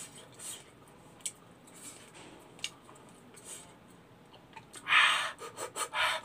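Soft breathing and mouth sounds of a man eating, then about five seconds in a run of quick, loud huffing breaths through the mouth, the panting of someone whose mouth is burning from hot chili.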